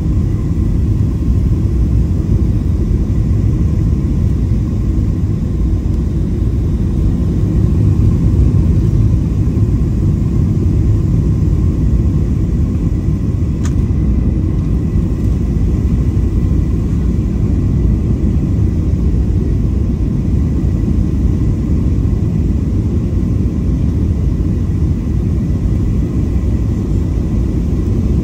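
Steady low rumble of jet airliner cabin noise on final approach, with the wing flaps extended, heard from a window seat. A single brief click comes about halfway through.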